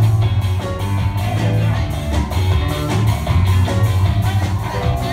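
A live rock band playing a song with guitars, keyboard and drums: a strong bass line under a steady beat of cymbal strokes, about four a second.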